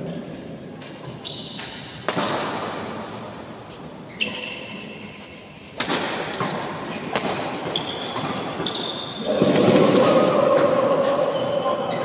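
Badminton rally: sharp racket strikes on the shuttlecock, with shoes squeaking on the court mat. Voices rise loudly about three-quarters of the way through.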